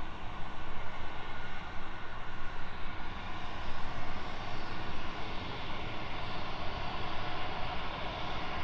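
Jet airliner engines running, a steady noisy rumble that grows a little brighter about halfway through.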